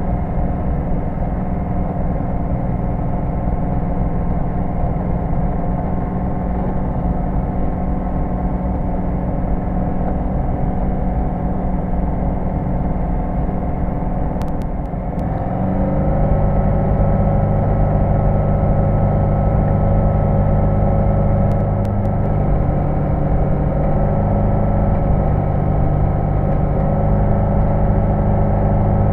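Flight Design CTSW's Rotax four-cylinder engine and propeller running steadily at low power, heard from inside the cockpit. About halfway through the revs step up, and the engine note rises and gets louder, then holds.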